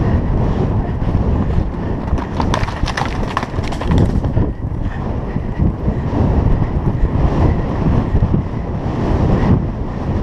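Galloping horse's hoofbeats on turf under heavy wind buffeting the microphone, with a flurry of sharp clicks about two to four seconds in.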